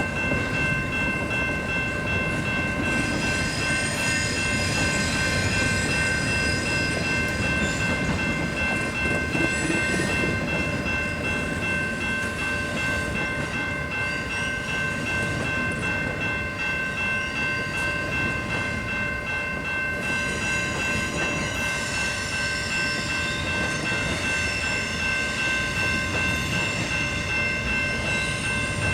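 Canadian Pacific intermodal double-stack freight train rolling past with a steady rumble of cars. A continuous high-pitched squealing runs over it and grows shriller twice, from about 3 to 7 seconds in and again from about 20 seconds to near the end.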